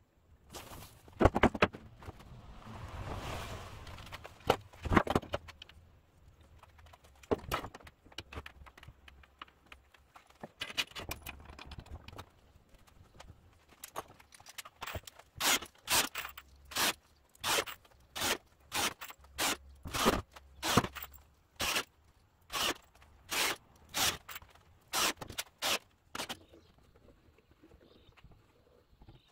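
Woodworking at a bench: a few sharp knocks of wood and tools, then a long run of short, even scraping strokes, about three every two seconds.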